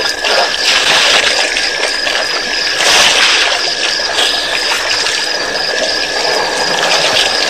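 Night ambience at a waterhole: a steady water-like hiss with a faint high tone and a faint, even high pulsing chirp about three times a second.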